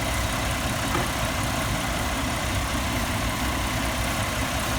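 Chevy 4.3-litre V6 idling steadily with the engine cover off, while its ignition coil and wires are wetted with water in a test for moisture arcing.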